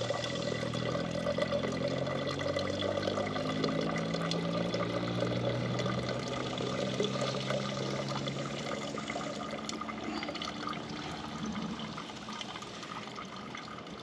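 Filtered water from a SimPure gravity water filter's outlet tube running into a plastic one-gallon jug, a steady trickling fill that slowly grows quieter as the filter bag runs down toward empty.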